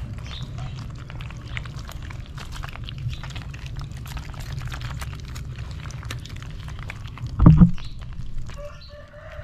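Live catfish squirming and slapping against each other in a basin of shallow water as a hand stirs through them: wet splashing and slithering over a steady low rumble. One dull thump a little after seven seconds in.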